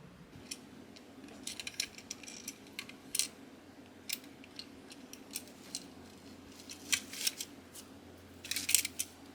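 Irregular small clicks and short rustles from hands handling plastic toy parts and packaging, in scattered bursts, the busiest near the end.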